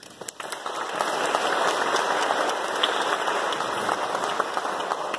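Audience applauding: many hands clapping, building up within the first second, holding, and starting to die away near the end.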